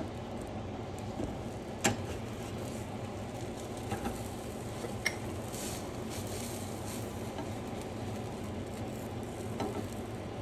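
A grilled cheese sandwich sizzling quietly in a small frying pan on a stove burner, over the steady noise of the kitchen fans. A few light clicks come from the pan, the sharpest about two seconds in.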